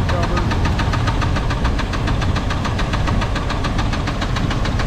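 Small-block Chevy V8 running steadily with a rapid, even knocking in time with the engine: a connecting-rod knock from a failing rod bearing.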